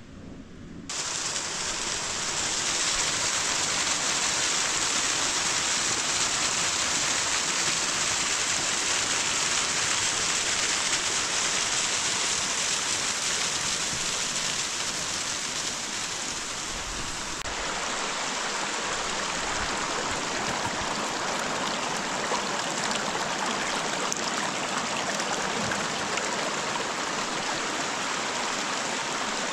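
Small mountain brook running over rocks, a steady rushing and splashing that starts abruptly about a second in.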